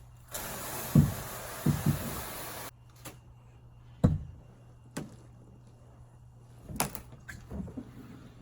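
A hose sprays for about two seconds with three heavy thumps, then a handful of separate knocks and bumps. These are typical of a canoe hull being washed down and handled.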